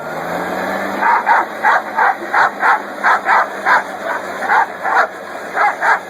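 A dog barking in a quick run of short barks, about three a second, starting about a second in over a steady background hum.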